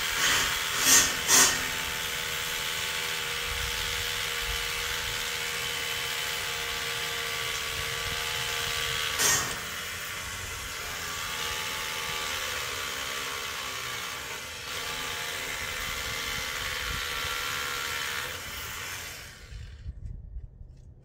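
Hammer drill boring anchor holes into concrete steps at a railing post, running steadily under load with its pitch wavering slightly. It stops near the end. A few sharp knocks come in the first couple of seconds and one more about nine seconds in.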